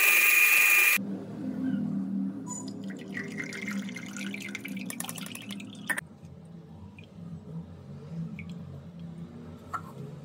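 Cookwell bullet blender motor running at full speed, grinding black grapes, with a steady high whine; it cuts off about a second in. Then juice drips and pulp scrapes against a steel mesh sieve as the grape juice is strained into a glass.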